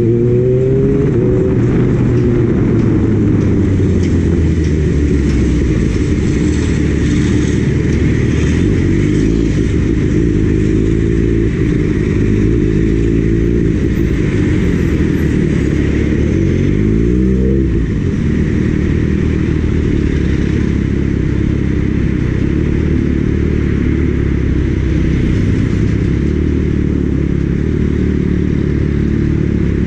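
Kawasaki Ninja ZX-6R's inline-four engine running under way, with loud wind noise over the microphone. The revs fall in the first second, then climb sharply a little past halfway and drop back, as at a gear change.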